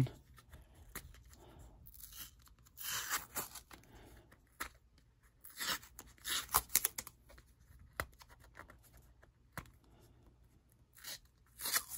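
Green painter's tape being peeled and torn off a stack of plastic card toploaders, in several short rips with quieter handling of the plastic between.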